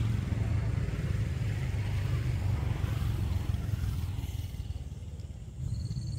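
Engine of a motor vehicle running with a low, rapidly pulsing rumble that fades away over the last couple of seconds and then cuts off suddenly.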